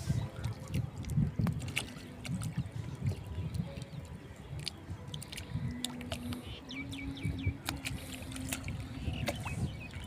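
Water lapping and sloshing around small wooden outrigger canoes, with an uneven low rumble and scattered light clicks throughout. A quick run of short high chirps comes about seven seconds in.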